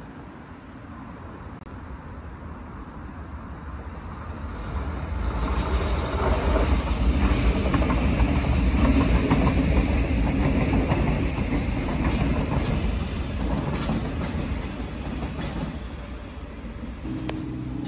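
Renfe Cercanías electric commuter train passing close by, its wheels clattering over the rails. The noise builds over the first few seconds, is loudest a few seconds later as the train goes by, and then fades as it moves away.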